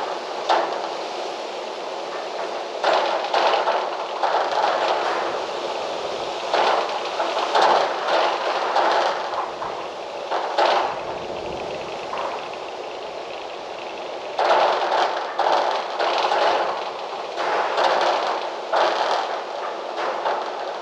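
Strong gusty wind, surging and easing every second or two.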